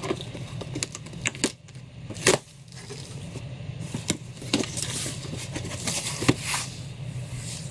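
Cardboard shipping box being handled and dragged across a counter: scattered irregular knocks and scrapes of cardboard, the loudest about two seconds in, over a steady low hum.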